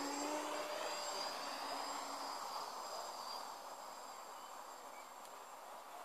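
Buzz of a Cheerson CX-20 quadcopter's motors and propellers on an F330 frame as it flies past, loudest at first and fading as it flies off into the distance.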